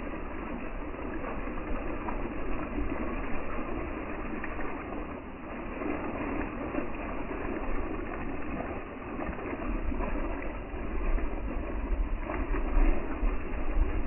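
Steady rain falling through the forest canopy, a continuous even hiss. A low rumble joins about ten seconds in, and the sound grows louder from there.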